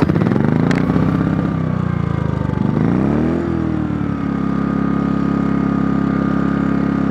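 Pulsar G2319N inverter generator's engine catching on the first pull, a cold start on choke with economy mode off. Its revs climb, sag and surge again for about four seconds as the choke is turned toward run, then settle to a steady high-RPM run.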